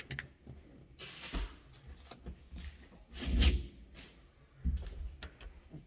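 An installation cord being pulled out from under the lip of a new rubber windshield seal, the rubber rasping as it is drawn over the glass edge in a few swishes, the longest about halfway through, with dull knocks and a few light clicks near the end.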